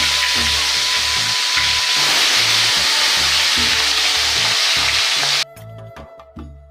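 Whole pabda fish sizzling loudly and steadily as they fry in hot oil in an aluminium kadai. The sizzle cuts off suddenly about five seconds in, leaving background music with a steady bass beat that also runs beneath the frying.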